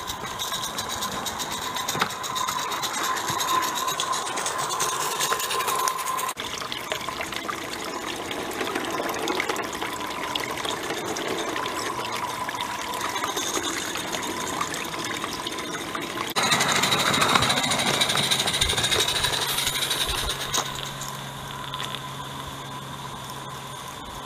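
Accucraft Ruby live-steam garden-railway locomotive running: a steady hiss of steam with fast chuffing. The sound changes abruptly twice and is loudest for a few seconds past the middle.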